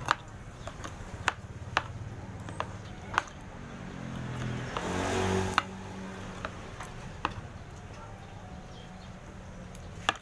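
Metal fork and spoon clinking against a ceramic soup bowl, several sharp clinks spread out over a steady low hum. Around the middle, an engine-like sound swells for about a second and a half and cuts off.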